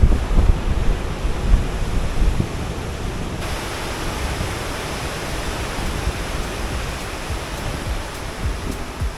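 Waterfall rushing in a steady, loud wash of water noise, with wind buffeting the microphone, strongest over the first three seconds.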